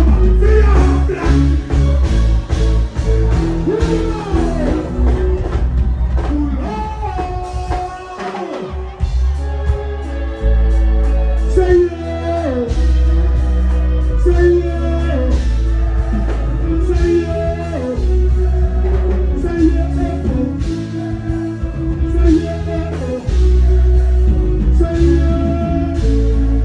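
Live dancehall reggae music played loud: a heavy bass line under a singing voice. The bass drops out briefly about eight seconds in, then comes back.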